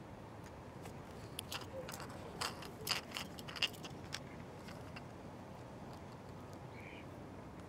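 Hands handling a jointed soft-plastic pike lure, flexing its sections and torn rubber skin: a cluster of small clicks and rustles from about a second and a half in to about four seconds in, the sharpest near three and a half seconds, over a steady outdoor background hiss.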